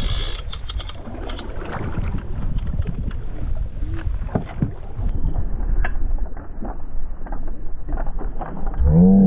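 Wind and water noise on a kayak-mounted microphone, with scattered small clicks and knocks from the kayak and gear. Near the end a low moaning tone rises and then falls.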